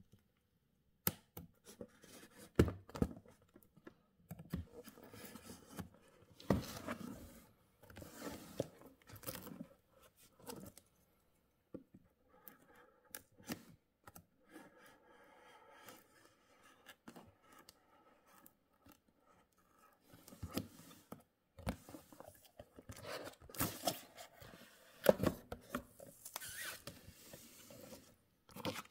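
A knife blade slitting packing tape along the seams of a cardboard box: irregular scratching and scraping strokes with tape tearing, and knocks and rustles of cardboard as the box is opened.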